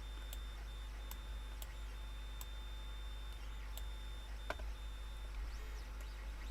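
Computer mouse clicking about six times at irregular intervals, over a steady low electrical hum and a faint high-pitched whine that breaks on and off.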